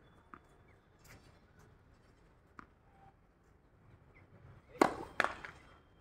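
Tennis ball impacts on a hard court: two sharp pops about half a second apart, a little over two-thirds of the way through, from a racket striking the ball and the ball bouncing. Fainter ball taps come earlier.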